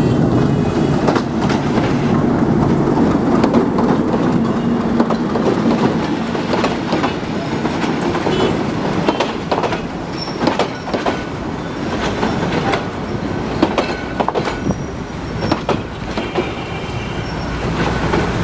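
Passenger train pulling into a station and slowing: a steady rumble of the passing cars with wheels clacking over rail joints. Brief high squeals from the wheels or brakes come near the end as the sound eases down.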